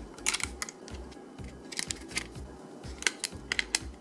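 Several sharp plastic clicks and snaps in quick clusters as a blue plastic drive caddy is clipped onto a 2.5-inch SSD's metal case.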